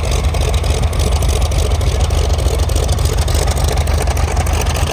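Twin piston radial engines of a Lockheed 12A Electra Junior droning steadily as the aircraft flies its display, a loud low rumble with propeller and engine noise.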